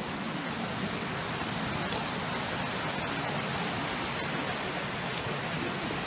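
Mountain stream rushing over rocks: a steady, even rush of water.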